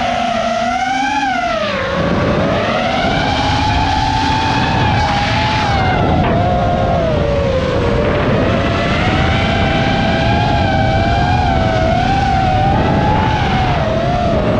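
Custom-built quadcopter's electric motors and propellers whining, the pitch rising and falling constantly with throttle, picked up by the camera on the quad itself, over a steady rush of prop wash and wind.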